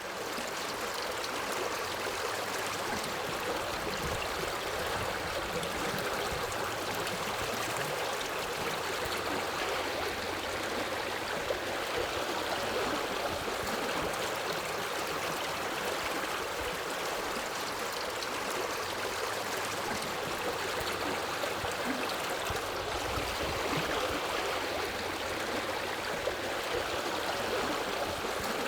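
Forest river flowing over rocks: a steady rush of water with gurgling and splashing.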